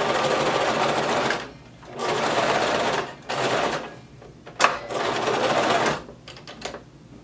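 Electric home sewing machine stitching through denim in four runs of about a second each, stopping and starting between them, with a sharp click in one of the pauses.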